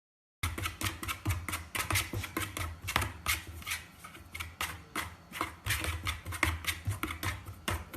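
Rapid, irregular clicking and tapping, several clicks a second, over a low hum; it starts abruptly about half a second in.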